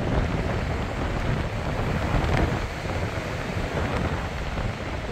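Strong onshore wind buffeting the microphone in a low, fluttering rumble, with surf washing on the beach underneath.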